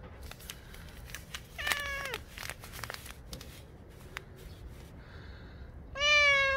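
Tabby cat meowing twice: a shorter meow about a second and a half in, then a louder, longer one near the end. Each call drops in pitch as it ends.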